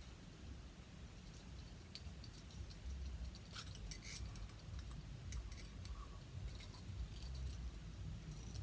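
Faint, irregular light clicks and clinks of small hard parts being handled and set down, over a low handling rumble.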